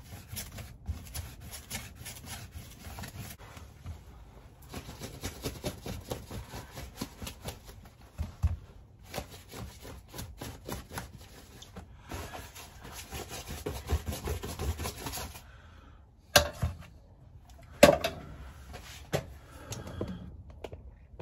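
Paintbrush scrubbing a homemade mixture of candle wax and white spirit into a fabric garment to waterproof it: quick repeated bristle-on-cloth strokes in runs of a few seconds, with short pauses between. Two sharper knocks come near the end.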